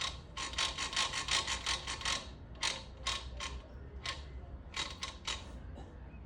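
Kick-start mechanism of a 110 cc motorcycle making its noise: a fast run of ratchet-like clicks, about eight a second, lasting under two seconds, then scattered single clicks. The noise comes from the kick-start shaft sitting slightly out of position, and is cured by turning the shaft a little forward.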